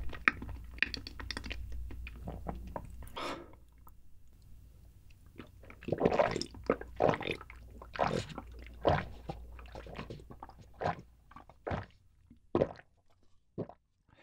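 A person chewing with wet mouth clicks, then, from about six seconds in, a run of swallowing gulps while drinking milk from a small bottle, about one or two gulps a second, with a few last swallows near the end.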